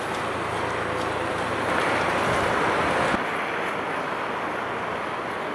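Wind blowing across an outdoor microphone, a steady rushing noise that turns duller about three seconds in.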